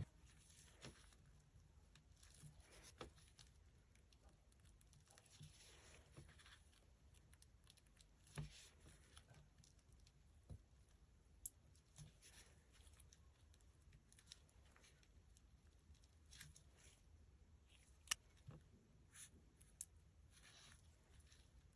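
Faint handling sounds of a squishy stress-relief toy being squeezed and pulled: soft rustling, tearing-like swells with small scattered clicks, over a low steady hum.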